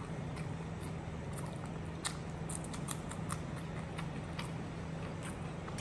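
Close-up chewing of a fried pastel pastry: many short, irregular mouth clicks over a steady low hum.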